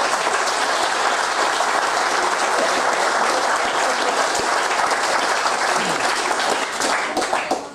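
Audience applauding, a dense patter of many hands clapping at an even level, dying away near the end.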